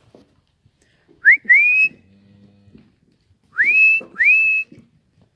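A person whistling while herding cattle: two pairs of sharp rising whistles, each sweeping up and then holding a steady high note, the second pair longer.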